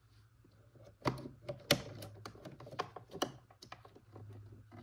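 Scissors snipping and working at electrical tape: a run of sharp, irregular clicks starting about a second in, as the blades struggle to cut through the thick tape.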